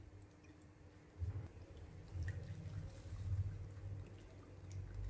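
Faint sound of thin lemon syrup bubbling in a nonstick wok and being stirred with a silicone spatula, with a low rumble that swells from about a second in.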